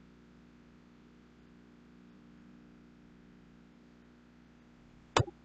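Microwave oven running, a faint steady low electrical hum, with one sharp click or knock near the end.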